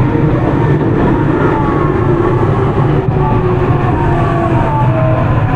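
Onboard running sound of a Tokyu 9020 series electric commuter train with a Mitsubishi full-SiC MOSFET VVVF inverter: a steady rumble of wheels on rail, with thin motor tones gliding down in pitch as the train slows.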